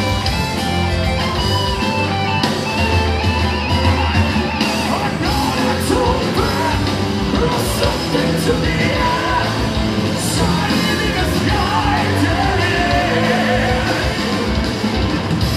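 Symphonic metal band playing live, with a singer's vocals over electric guitars, drums and keyboards.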